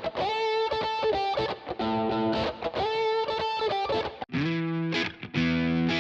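Electric guitar played through a drive preset on a TONEX MAX amp-modelling pedal, with a distorted tone. A short riff ending on a held note is played twice, then a lower, fuller phrase starts about four seconds in.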